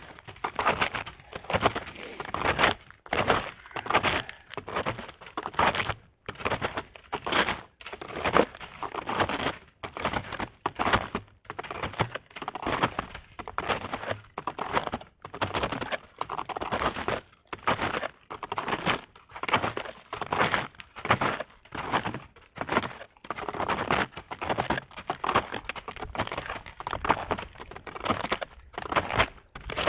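Footsteps crunching in snow, a steady walking rhythm of a little more than one step a second.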